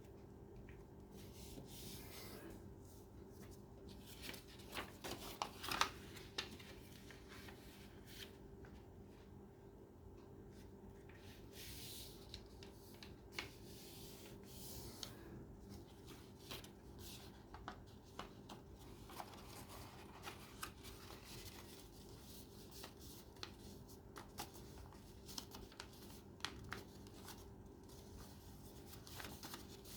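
Sheets of origami paper being handled and folded: faint rustling with scattered crisp creasing clicks, a cluster of them about five to six seconds in. A low steady hum runs underneath.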